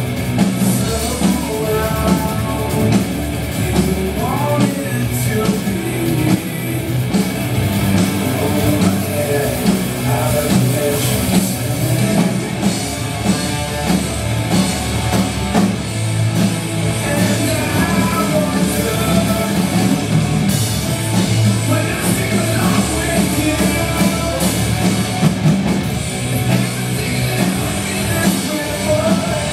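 Acoustic drum kit played along with a rock song that has electric guitar and singing, the drums and cymbals hitting steadily under the melody.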